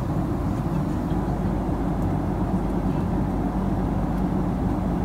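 Steady low drone inside an airliner cabin: engine and air-system noise heard from a passenger seat.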